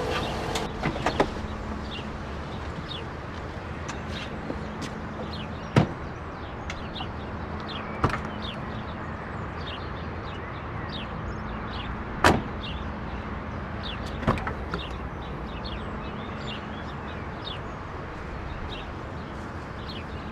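An SUV's doors and tailgate being opened and shut: four sharp clunks spread through, the loudest about halfway, over a steady low hum.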